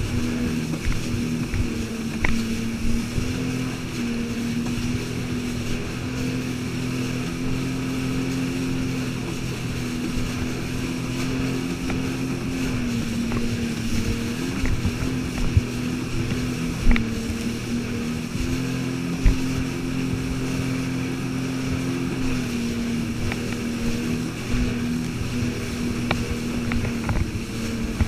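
Jet ski engine running at speed, a steady drone that dips slightly and comes back up a few times as the throttle changes. A few sharp knocks break in, the loudest two in the second half.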